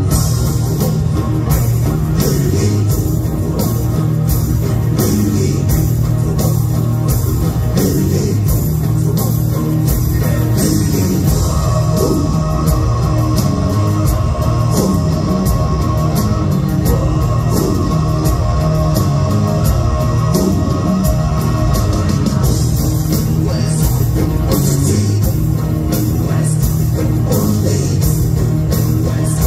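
Mongolian folk-metal band playing live, heard loudly from the crowd: drums, guitars and a sung lead vocal. A held, steady tone joins the music for about ten seconds in the middle.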